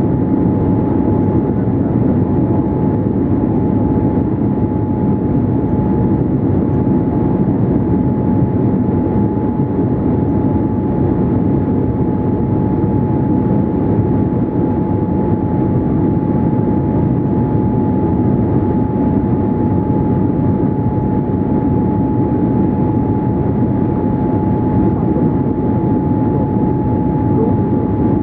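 Steady engine and airflow noise inside the cabin of a Boeing 787-8 Dreamliner in flight, with a thin steady whine over it.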